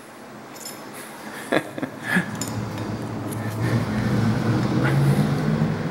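A few light metal clicks as a small pointed tool pries at the steel faceplate of a dividing head. From about halfway in, a low steady mechanical hum builds and grows louder.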